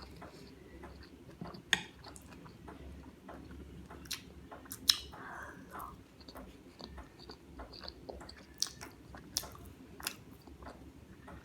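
A person chewing chicken Manchurian close to the microphone: soft wet mouth sounds with many small sharp clicks, two louder ones about two and five seconds in.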